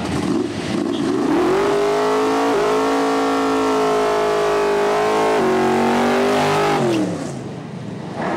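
Supercharged V8 of a first-generation Chevrolet Camaro drag car held at high revs during a burnout, spinning its rear tires to smoke. The engine climbs to a steady high pitch about a second in, steps slightly twice, then winds down near the end as the throttle is lifted.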